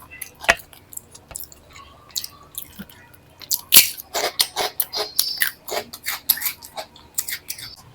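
A person chewing a mouthful of food close to the microphone. Scattered mouth clicks at first, then, from about halfway, a quick run of sharp chewing clicks, several a second.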